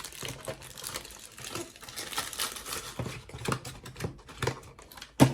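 Small plastic model-kit wheel parts and their packaging being handled: a run of light clicks and rustles, with one sharp louder click near the end.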